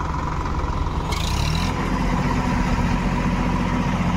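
Tractor diesel engine running under load while towing a stuck tractor on a chain. It revs up about a second and a half in, with a brief hiss just before.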